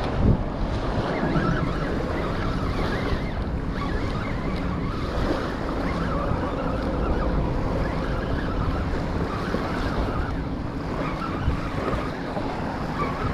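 Wind buffeting the microphone over small waves lapping on a sandy shore, a steady rushing noise.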